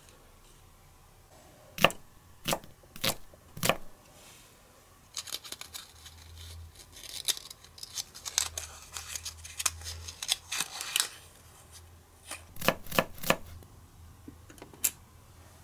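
Small plastic miniature toy pieces clicking sharply four times, then several seconds of paper crinkling and rustling, then a few more quick clicks near the end.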